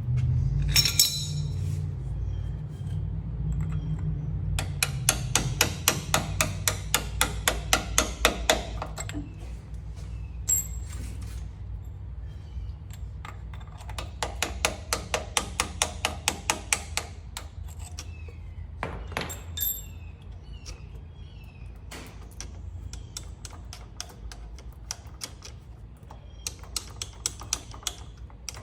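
Ratchet wrench clicking in quick runs of about six clicks a second, three times, as bolts on the Ford 3000 tractor's PTO lever handle are worked loose. Now and then a metal tool clinks, over a steady low hum.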